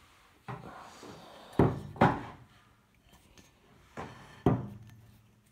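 Five sharp knocks and clunks of metal air-rifle parts being handled against a wooden tabletop, the two loudest close together a little under two seconds in.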